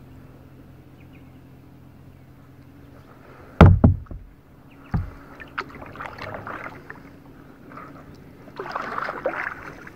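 Kayak paddling: a few heavy knocks a little over a third of the way in and one more a second later, then paddle strokes splashing through the water, twice in the second half.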